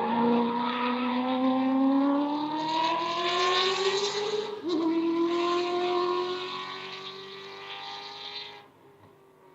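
Ferrari V8 engine of a swapped Subaru Impreza rally car accelerating hard, its pitch rising steadily, then a quick upshift about halfway through and the engine pulling again as the car drives away, fading until it drops off sharply near the end.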